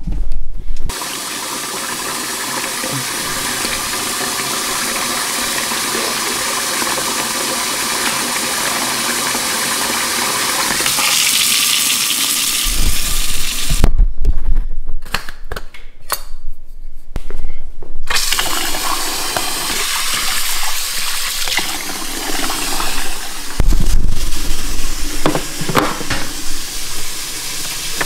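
Water running from a tap into a container, a steady rush that grows slowly louder for about ten seconds as it fills. Then come a few seconds of clicks and knocks from handling, and then more uneven rushing with bumps.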